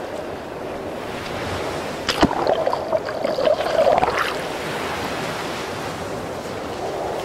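Small waves washing in the shallow surf. About two seconds in, a sharp knock, followed by about two seconds of close, churning splashes and gurgling water right at the microphone, then the steady wash of the surf again.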